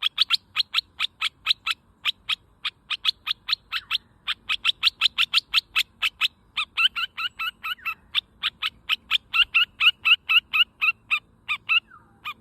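Bulbul (merbah) calling a rapid, steady series of short sharp notes, about five a second, with a few brief pauses.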